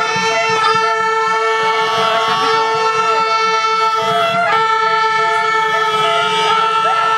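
A loud, steady horn-like tone with several overtones, held without a break, over shouting and cheering voices.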